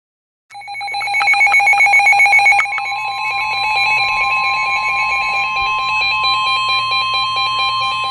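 NOAA Weather Radio alert tones: a rapidly pulsing electronic beeping alarm starts about half a second in, and at about two and a half seconds the steady 1050 Hz warning alarm tone comes in and holds, signalling that a warning is about to be broadcast.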